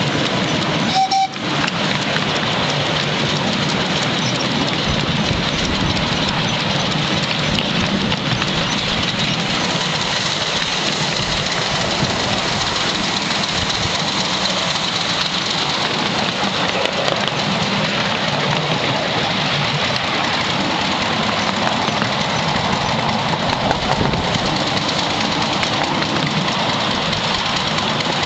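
Miniature steam locomotive on the run, giving a steady hiss and rush of steam exhaust mixed with the running noise of the train on the track.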